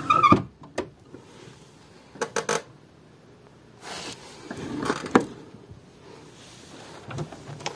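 A wooden drawer being worked into its cabinet: short knocks and clicks, then a scraping slide about four seconds in that ends in a knock. It does not go in on the first try.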